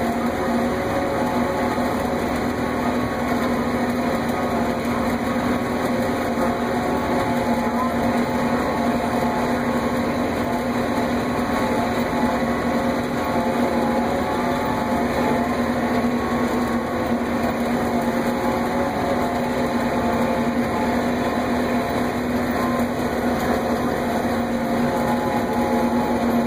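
Self-propelled swather running steadily as it cuts sorghum-sudangrass, heard from inside the cab: an even mechanical drone with a strong steady hum that does not change.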